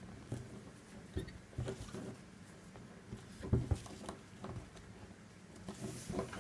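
Paracord strands rustling and brushing against one another and against fingers while an 8-strand round braid is worked by hand, with small scattered ticks and a couple of soft knocks about three and a half seconds in.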